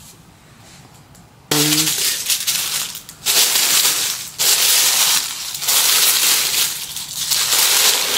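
Tissue paper crinkling and rustling as it is pulled open and folded back, starting suddenly about a second and a half in and going on in loud, repeated surges.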